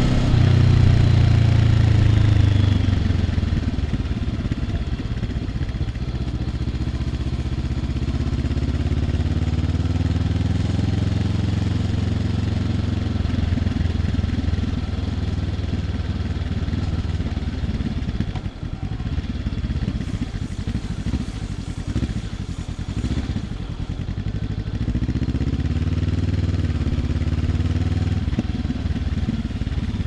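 2023 Honda CL500 parallel-twin engine running through an Arrow aftermarket exhaust while riding: the engine note drops over the first few seconds as it slows and then runs steady. It goes quieter and uneven for a few seconds past the middle, then rises again as it picks up speed near the end.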